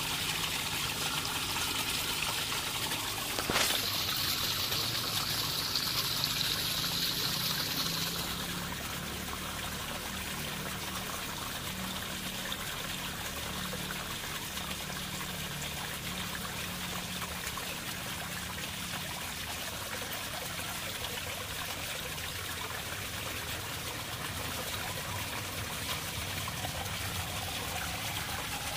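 Water trickling steadily through an aquaponics system. It is louder for the first eight seconds or so, with a single sharp knock about three and a half seconds in.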